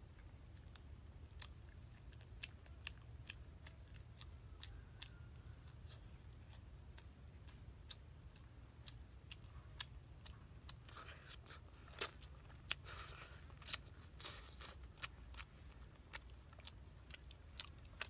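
A person eating braised chicken by hand: scattered short clicks and smacks of chewing and biting, with a denser run of louder crunching and tearing from about eleven to fifteen seconds in.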